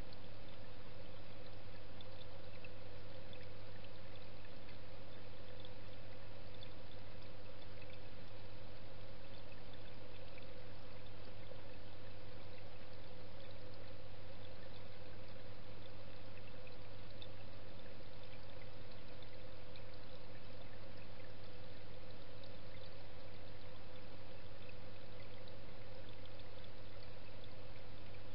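Steady rush of moving water heard through an underwater camera in a fish pond, with a constant low hum beneath it and no change throughout.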